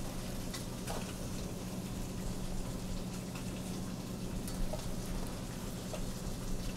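Steady hum of commercial kitchen ventilation with a constant low drone, and a few faint light ticks as kosher salt and black pepper are sprinkled onto raw pork shoulder in a stainless steel pan.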